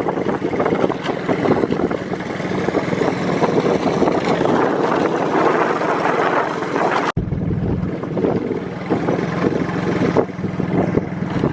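An engine running steadily with a constant hum, with a brief dropout about seven seconds in before it carries on.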